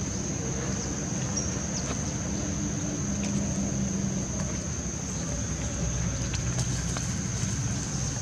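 Steady outdoor background noise: a low rumble with a continuous high, thin whine above it and a few faint ticks.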